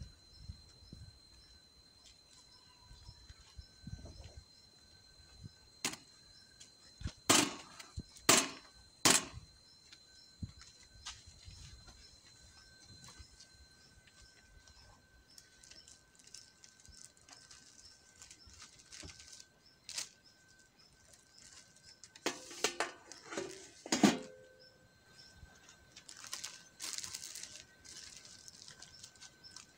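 Scattered sharp knocks and clicks from handling the wooden chimney-cake (kürtőskalács) rollers and baking tools, with paper rustling near the end as a finished cake is wrapped.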